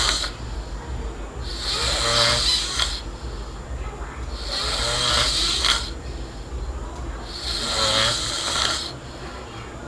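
A sleeping person snoring heavily, pig-like, with three long snores about three seconds apart.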